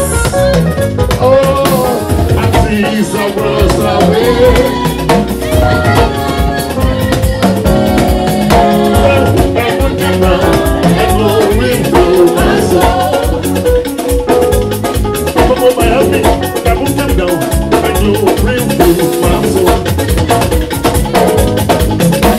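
Live band music: a dense, steady drum and percussion groove under melodic instrument lines, with a voice singing at times.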